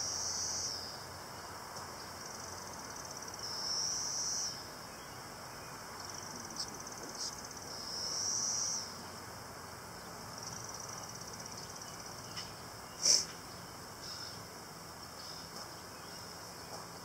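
High-pitched trilling calls, each about a second long, repeating every two seconds or so. A few light clicks and one sharp knock, the loudest sound, come about four seconds before the end.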